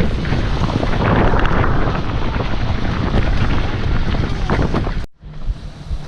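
Wind buffeting the microphone: a loud rumbling rush of noise, cut off suddenly about five seconds in, then a quieter stretch of the same kind of noise.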